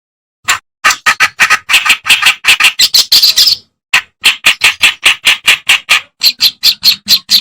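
Kerakbasi (reed warbler) singing a fast, harsh, scratchy chatter of repeated notes, about five a second, starting about half a second in and breaking off briefly after about three seconds before going on.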